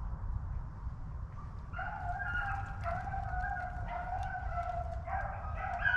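Pack of rabbit hounds baying in long, drawn-out calls while running a rabbit, starting about two seconds in, with more voices joining near the end. A low rumble runs underneath.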